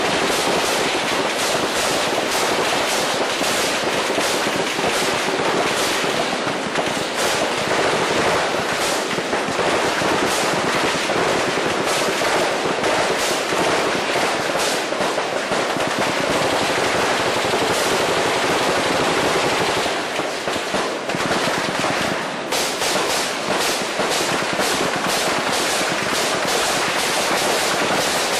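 Storm precipitation pounding a hard surface: a loud, dense, continuous rattle of countless small impacts. It eases slightly for a couple of seconds about two-thirds of the way through, then comes back as hard.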